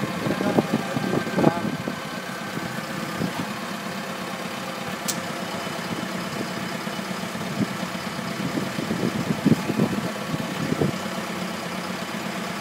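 Truck engine idling steadily, with a single sharp click about five seconds in.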